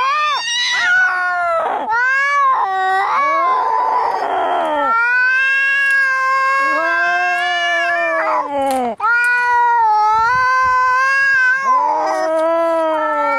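Domestic cats caterwauling in a fight: long, loud, wavering yowls that rise and fall in pitch, with a hissing spit a few seconds in. These are the threatening yowls of angry cats squaring off.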